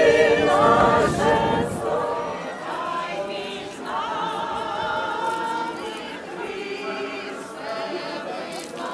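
Church choir singing a liturgical chant in sustained notes, loudest in the first two seconds and softer after that.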